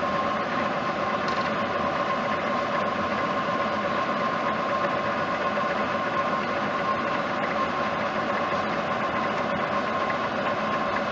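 Metalworking machine tool running steadily through a cut in a metal bushing, with a constant whine.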